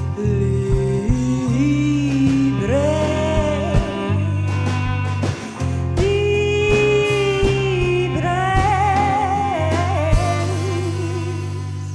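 Live band of vocals, guitar, bass, drums and cello playing: a voice sings long held notes with vibrato over a steady bass line and drum hits. The sound starts dying away near the end as the song closes.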